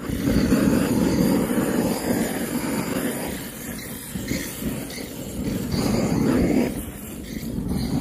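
Handheld butane torch on a gas canister blowing a steady flame onto charcoal to light it: a loud, continuous roar of burning gas that eases and swells a little as the torch moves.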